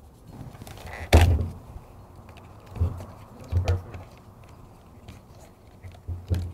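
Plastic trim on a removed Corvette C7 steering wheel being pried and popped off with a flathead screwdriver. There is one sharp knock about a second in, then a few softer knocks and clunks.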